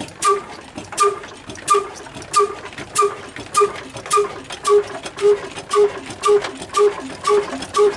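Old 22 hp, 300 rpm horizontal single-cylinder diesel engine with a big flywheel running, each beat a sharp knock with a short squeaky chirp. The beat quickens from about one and a half to two a second as the engine picks up speed.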